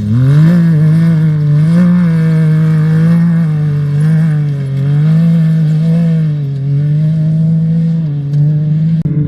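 Off-road race vehicle engine revving up sharply at the start, then held at high revs with the pitch wavering slightly, easing off briefly near the end.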